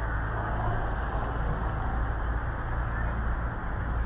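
City street background noise: a steady low rumble of passing traffic.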